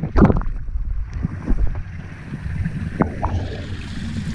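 Small cascade of water pouring over icy rocks, splashing and gurgling close to the microphone in a low, rumbling rush with scattered small knocks.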